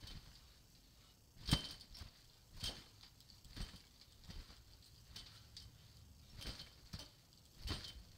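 Trampoline mat thudding about once a second as a child bounces on it, each landing with a short high squeak.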